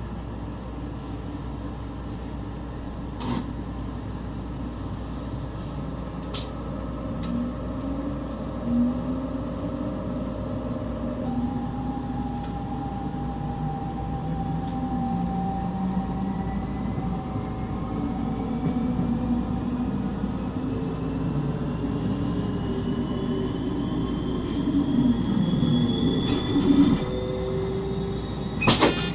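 Electric stopping train heard from inside the driver's cab: steady running rumble with shifting low tones. Through the second half a thin whine rises steadily in pitch as the train picks up speed. A few sharp clicks, the loudest near the end.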